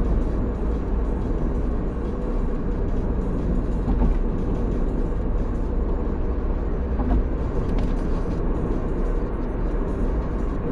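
Car running, a steady low rumble of engine and road noise.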